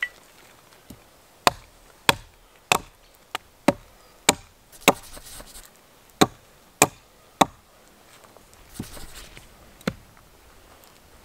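Hatchet chopping into a thin standing tree trunk: sharp wooden strikes about every 0.6 s, a short pause about halfway through, then a few more blows and two slower ones near the end.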